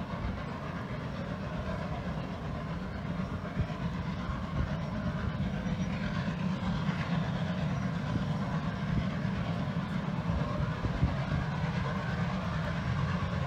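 Steam locomotive of the Strasburg Rail Road working hard with a passenger train, heard as a steady rumble that grows slightly louder as it approaches.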